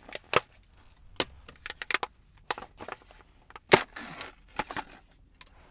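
Crinkly potato-chip bag being pulled open and handled: a series of sharp crackles, the loudest about three quarters of the way through.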